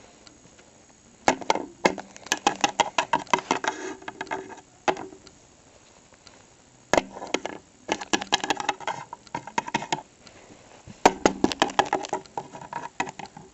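Plastic Littlest Pet Shop figurines tapped in quick hops on a hard tabletop, making rapid clicking knocks. The clicks come in three bursts of a few seconds each.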